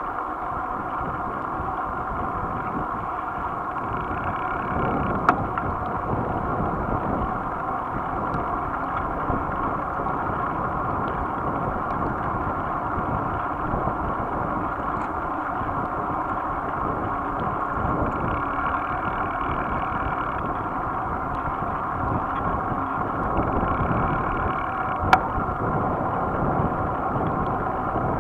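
Steady wind buffeting and road rumble picked up by a camera riding on a moving bicycle. A sharp knock comes about five seconds in and another near the end, like jolts from bumps in the road.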